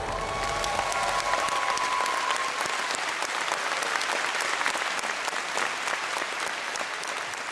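Audience applauding at the end of a song, a dense steady clatter of many hands clapping, with a faint held note dying away in the first couple of seconds.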